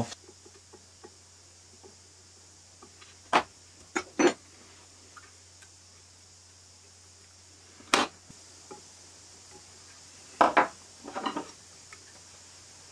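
Scattered light metallic clicks and snips from a pair of scissors worked among the enamelled copper winding wires of a washing-machine stator, a handful of separate sharp ticks several seconds apart.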